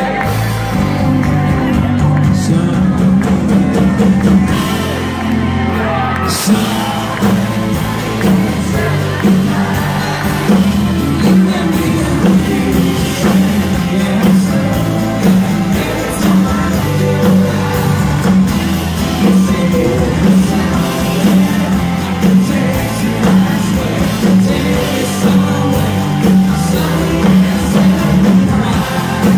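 Live country band playing a song: a male lead singer over drums, bass and guitars. The cymbals and high end come in more fully about six seconds in.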